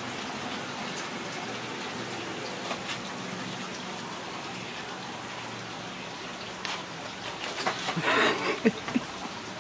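Ragdoll kittens scrambling on a carpeted cat tree and a hanging wire basket, with scattered clicks and a louder burst of rustling and rattling about eight seconds in, over a steady background hiss.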